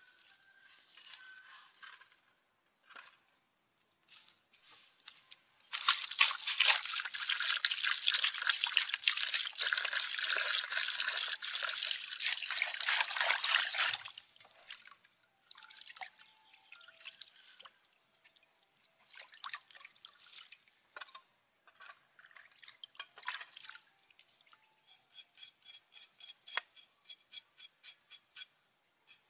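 Water splashing and sloshing as a raw pig leg is washed by hand in a halved shell bowl, loudest for several seconds near the start, then quieter splashes. Near the end a knife scrapes the pig skin in quick regular strokes, about three or four a second.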